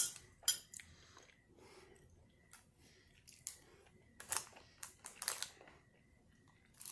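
Close-miked chewing of a mouthful of beef pot pie: scattered wet mouth clicks and soft crunches, with a cluster of louder ones around four to five seconds in.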